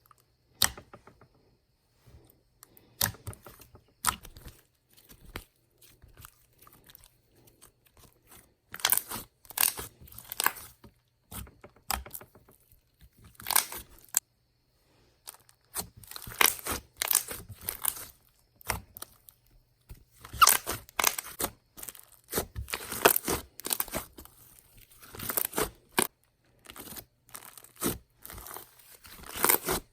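Hands playing with a white butter-textured slime, stretching, poking and squishing it: crackly pops and crunches in clusters, with short pauses between them.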